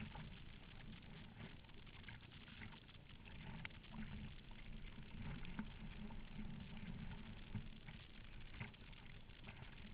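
Strong wind buffeting the microphone, with scattered small splashes and knocks of water against a Perception Scooter sit-on-top kayak.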